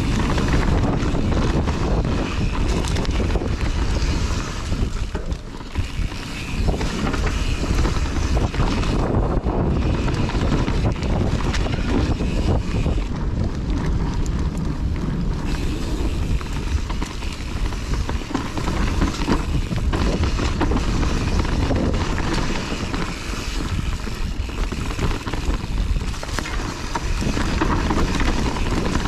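Wind noise on a chest-mounted action camera during a mountain-bike descent on a Kona Process 153, with the tyres rolling over dirt and many short rattles and knocks from the bike over bumps.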